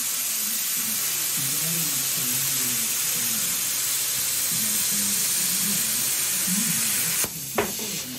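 Plasma cutter arc hissing steadily as the CNC torch cuts through sheet metal, with low motor whines shifting in pitch underneath as the gantry moves the torch. The hiss cuts off suddenly about seven seconds in as the arc shuts off, followed by a single sharp click.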